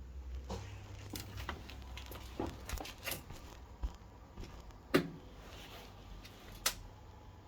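Irregular clicks and knocks, the loudest about five seconds in and another near the end, over a steady low hum.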